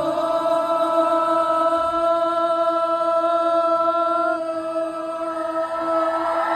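A male singer holds one long, steady note live for about six seconds, without guitar behind it.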